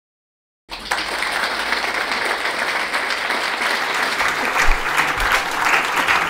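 Audience applauding, a dense steady clapping that cuts in abruptly under a second in, after silence.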